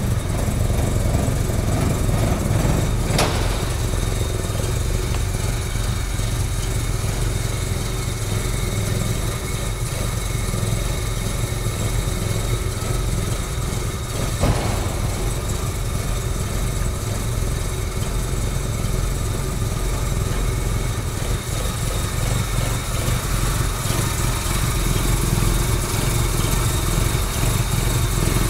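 Opel Manta B GSI's 2.0-litre four-cylinder engine idling steadily, with two short knocks, one about three seconds in and one about fourteen seconds in.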